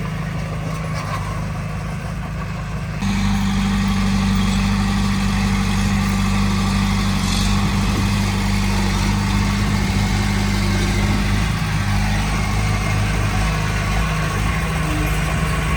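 Diesel engine of heavy earthmoving machinery running steadily, stepping up louder about three seconds in and holding there.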